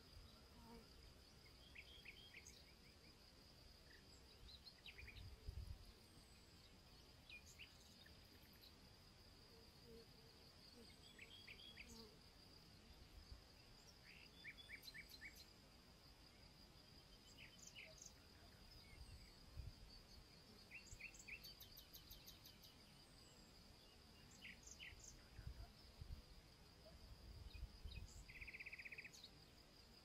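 Faint steady high-pitched insect trill, with scattered short bird chirps. Wind rumbles on the microphone a few times.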